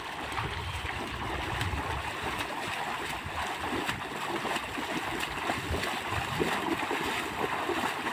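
Several people wading through shallow lake water, their feet splashing and sloshing in a steady run of small, irregular splashes.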